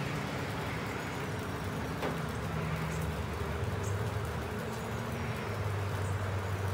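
Steady outdoor background noise with a low, wavering hum underneath, and one faint click about two seconds in.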